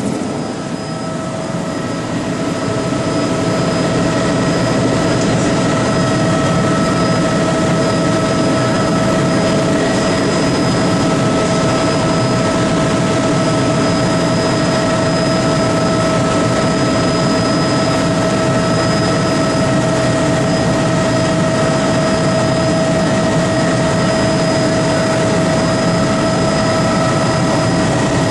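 Aircraft engine running steadily in flight, heard from inside the cabin: a dense rumble with a constant tone over it. The level dips briefly about a second in, then holds steady.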